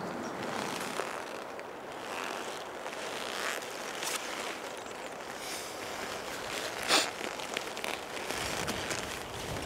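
Rustling and crackling from handling, with a sharper crackle about seven seconds in, over a steady outdoor hiss.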